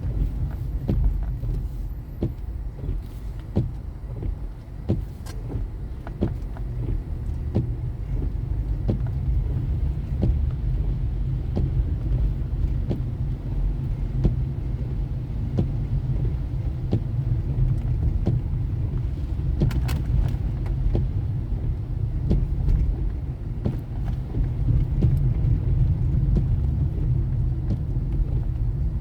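Car driving along city streets: a steady low rumble of engine and road noise, broken by frequent small knocks and rattles.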